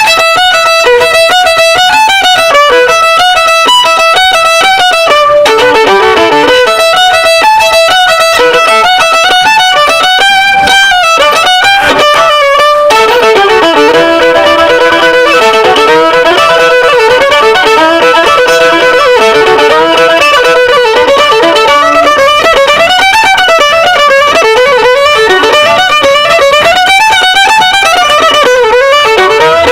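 Fiddle music: a violin plays a quick, rhythmic run of repeated notes, then about thirteen seconds in changes to a slower, flowing melody.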